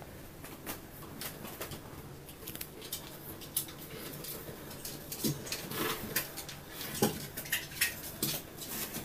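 Light clicks, taps and scrapes as a small dog clambers about on a bedside cabinet, its claws and paws on the wooden top, with a few louder knocks in the second half.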